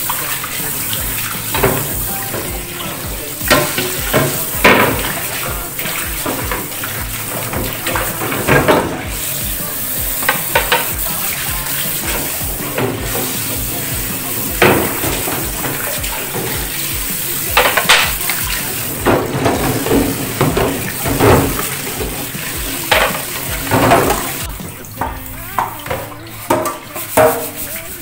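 Water running from a tap into a sink while items are washed, with repeated knocks and clatter of things being handled. The running water stops about four seconds before the end. Background music plays throughout.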